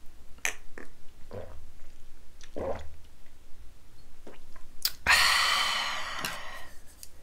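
Mouth and swallowing sounds from drinking a shot of soju, a run of small wet clicks, then a sharp click and a loud breathy exhale lasting about a second, about five seconds in.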